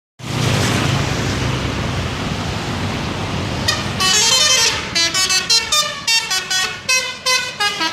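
Bus running with a loud low rumble, then its telolet multi-tone musical horn. About four seconds in there is a short note, then a longer chord, then a quick run of short toots jumping between several pitches, playing a tune.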